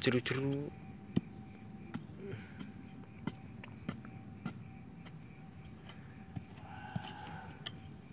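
Steady high-pitched trilling of night insects, with dull strikes of a hand-held digging tool chopping into soil, roughly one every half second to a second.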